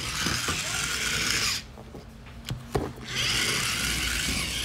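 Battery-powered toy tumbling tank running: its small electric motor and plastic gearbox give a steady grinding whirr. About a second and a half in the whirr drops away for roughly a second and a half, with a few sharp clicks, then resumes.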